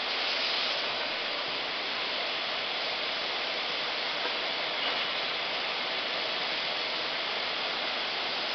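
Steady, even din of round-drawcord braiding machines running, with no single knock or beat standing out.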